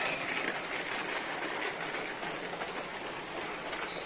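Steady rush of water running from a spring in a rock. A bright metallic ring fades away at the very start.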